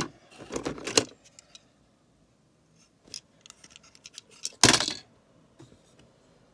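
Plastic Lego bricks and pieces clattering as a hand rummages through a tub full of them: bursts of sharp clicks with a short quiet stretch, and a louder rattle about four and a half seconds in.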